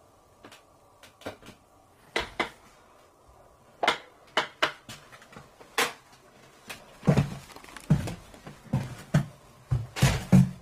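Scattered sharp knocks and clicks of a wooden door being handled, then heavier thuds about twice a second from about seven seconds in, footsteps on a wooden floor in a small room.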